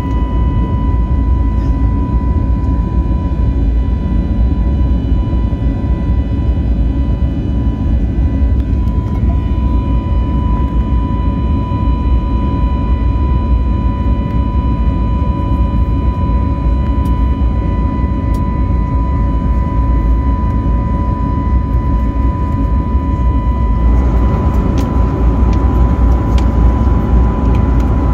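Steady cabin noise of an Airbus A321neo in its climb: a heavy low rumble of the CFM LEAP-1A engines and the airflow, with a steady whine of engine tones on top. About 24 seconds in, the noise takes on more hiss.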